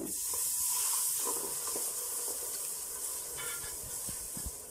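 Milk poured into a hot roux of ghee, oil and flour, sizzling loudly the moment it hits the pan and fading as it is stirred in with a silicone spatula.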